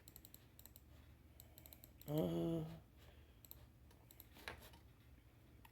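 Faint, scattered clicks of a computer keyboard and mouse, with a short murmured voice sound, a brief 'mm', about two seconds in.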